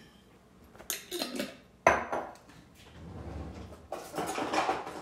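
Kitchen clatter: a few clinks, then a sharp knock about two seconds in as an empty glass sauce jar is set down on a granite countertop. Near the end, utensils rattle as a spatula is picked up.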